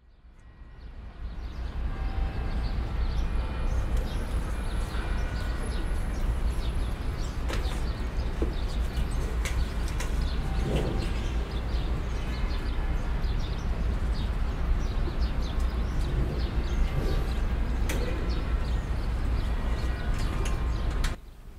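A steady low rumble of outdoor ambience with faint bird chirps and scattered small clicks; it fades in at the start and cuts off abruptly just before the end.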